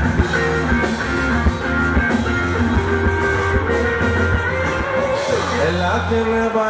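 Rock-style band music: guitar over drums and a steady bass, with a voice starting to sing near the end.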